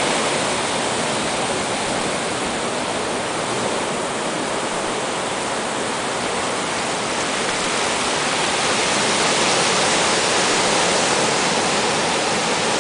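Heavy Gulf of Mexico surf, raised by hurricane swell, breaking and washing over the shallows: a steady rushing hiss of foaming water that swells a little past the middle.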